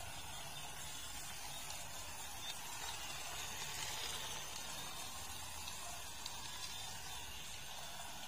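Faint, steady whir of a battery-powered toy police car's small motor and wheels as it drives and turns on a tile floor.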